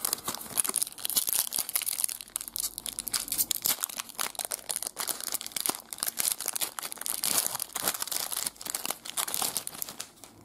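Foil trading-card booster pack crinkling and tearing as it is opened by hand, a dense run of sharp crackles.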